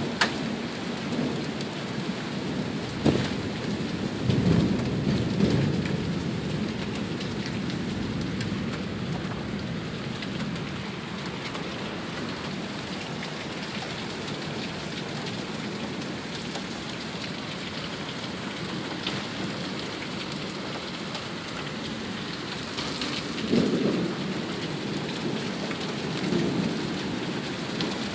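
Heavy rain pouring down steadily in a thunderstorm, with a sharp crack about three seconds in and low rumbles of thunder just after it and again near the end.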